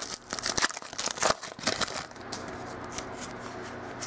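A foil trading-card pack crinkling and being torn open by hand, with a dense run of sharp crackles for about two seconds, then quieter handling of the cards with a few light ticks.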